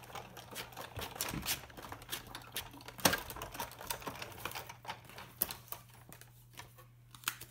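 Big Shot die-cutting machine being hand-cranked, a plate sandwich holding a stitched circle framelit passing through its rollers to cut the shape: a run of irregular clicks and knocks, the loudest about three seconds in.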